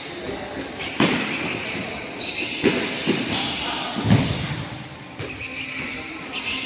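Futsal ball being kicked and bouncing: about five thuds, the loudest about four seconds in, over shouting voices from players and onlookers.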